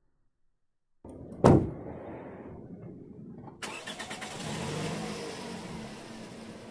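Near silence for about a second, then a single sharp thump, followed by a car's engine that rises and falls in pitch as it passes.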